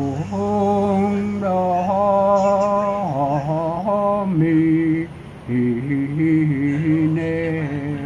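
An elderly man singing Latin wedding Mass chant unaccompanied, in long held notes that step from pitch to pitch, with a brief pause about five seconds in.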